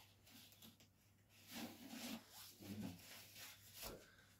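Near silence with a few faint rustling and handling noises in the second half.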